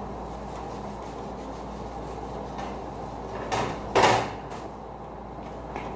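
Kitchen things being handled: two sharp knocks about half a second apart in the middle, the second the loudest, then a lighter click near the end.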